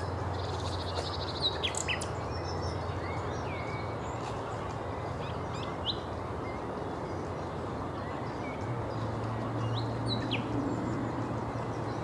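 Common nightingale singing in short, scattered phrases: a rapid rattling trill and a few sharp whistled notes in the first two seconds, then single notes with pauses between. A steady low hum and rumble of background noise runs underneath.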